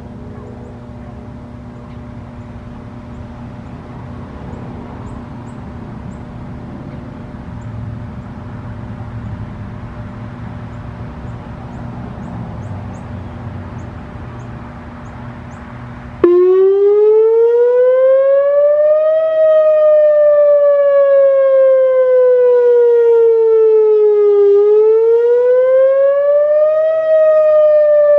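Whelen WPS-2904 electronic outdoor warning siren sounding its wail tone in a scheduled test. For the first half only a steady low background rumble and hum is heard. A little past halfway the siren switches on abruptly at full volume, then glides slowly up and down in pitch: about three seconds rising, five falling, then rising again.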